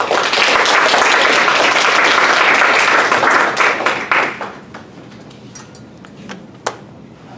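A small audience applauding for about four seconds, then tapering off into a few last claps. A single sharp tap follows near the end.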